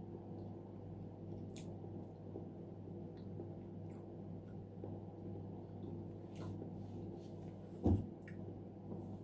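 Soft, wet chewing and small mouth clicks from eating soft boiled sweet potato, over a steady low hum, with one short low thump about eight seconds in.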